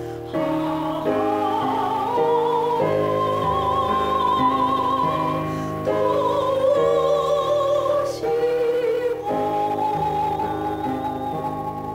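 A woman singing a Japanese art song in a trained classical style, holding long notes with a wide vibrato, over instrumental accompaniment.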